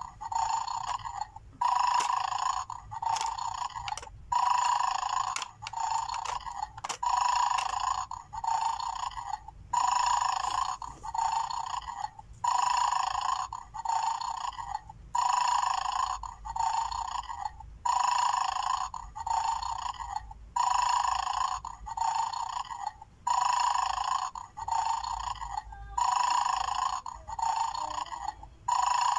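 Mad Dog bulldog toy's speaker playing its looped snoring sound while it guards its bones: a longer snore and a shorter one, repeating about every two and a half seconds.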